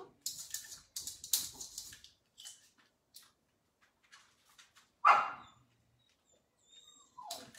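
A dog gives one short bark about five seconds in and a shorter yelp just before the end, with light scuffling and rustling in the first two seconds.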